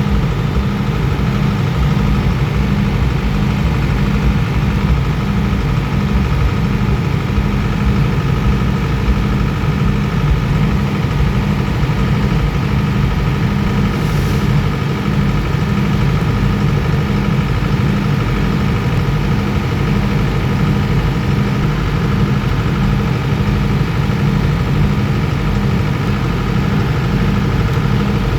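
A train power car's diesel generator set running steadily: a loud, constant engine drone with no change in speed.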